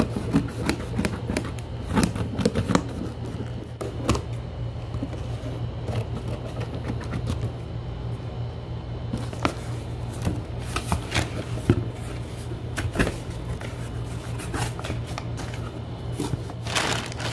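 A cardboard shipping box being opened by hand: a blade scraping along the packing tape, the flaps creaking and flapping open, and crumpled kraft paper packing rustling near the end. Irregular scrapes and clicks over a steady low hum.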